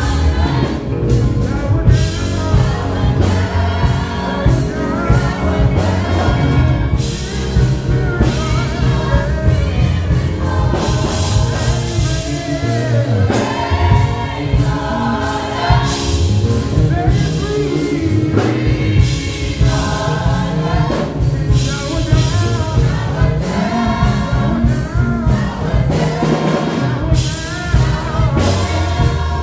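Gospel choir singing with a male lead vocalist on a handheld microphone, backed by a live band with guitar and keyboard.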